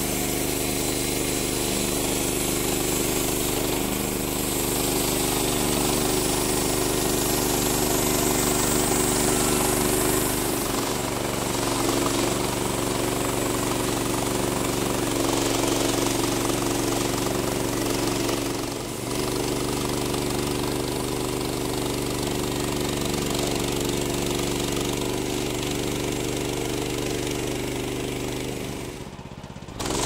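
Woodland Mills HM126 portable band sawmill running steadily under load, its gas engine driving the band blade through a pine log.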